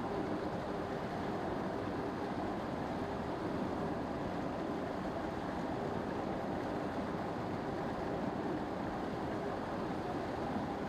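River water rushing steadily over rocks, an even rush with no breaks.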